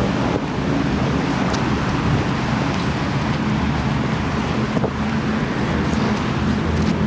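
Strong wind buffeting the microphone over the wash of sea waves, with a low steady hum underneath.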